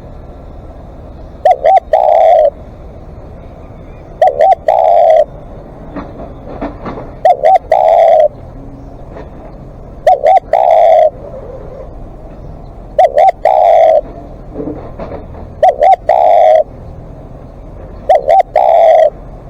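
Spotted dove cooing over and over: seven phrases about three seconds apart, each two quick short notes followed by a longer, drawn-out coo, loud and close.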